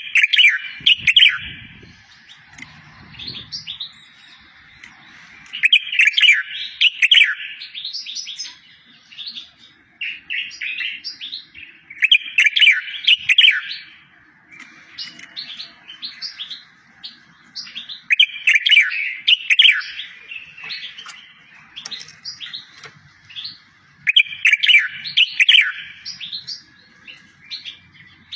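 Songbird singing a tutor song for training goldfinches and canaries: a loud phrase of quick up-and-down whistled notes repeats about every six seconds, with softer chirps in between.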